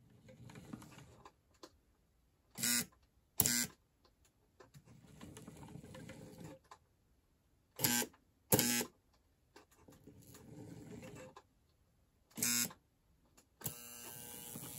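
Märklin V60 model locomotive chassis with its shell off, its small electric motor and gears whirring in short runs of a second or two. Between runs come pairs of brief, much louder buzzing clicks as the loco stops and changes direction.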